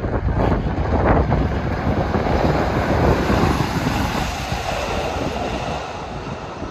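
A passenger train passing through the station: wheels rumbling on the rails. The rumble swells in the first second, stays strongest for a few seconds, then fades toward the end.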